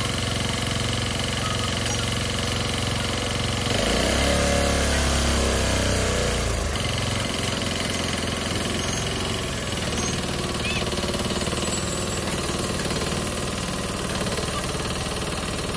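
Farm tractor's diesel engine running steadily under load while it drives the trailer's hydraulic tipping ram. About four seconds in the note turns louder and lower for a few seconds, then settles back.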